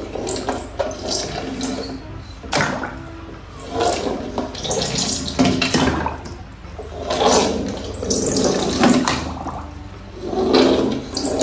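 Water rushing and splashing in a small tub as die-cast toy cars drop in, with bubbling, in several surges.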